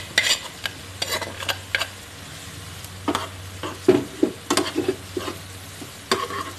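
A spoon stirring and scraping cooked prawns into a thick masala in a non-stick pan, in irregular strokes, over a low sizzle from the pan.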